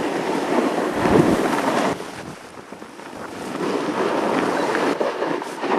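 Snowboard sliding through deep powder snow: a rushing hiss mixed with wind buffeting the microphone. It dips about two seconds in, then builds again.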